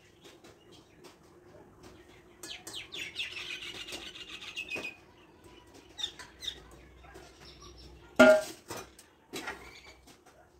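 Hilsa fish pieces going into hot oil in a steel kadai, sizzling and spitting with a crackle for a couple of seconds. This is followed by a few clicks and, about eight seconds in, a loud ringing clang of steel utensils.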